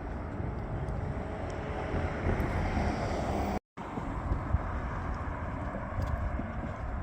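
Steady low rumble of a passing motor vehicle, swelling a little about three seconds in. The sound cuts out completely for a moment just before the middle, then goes on.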